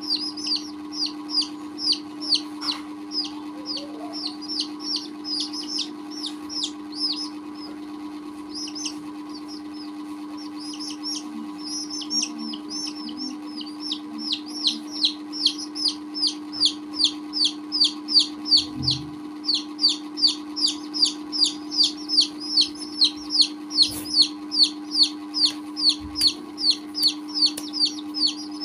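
Baby chicks peeping: a continuous run of short, high, falling peeps, about two to three a second. The peeps grow louder and more regular about halfway through.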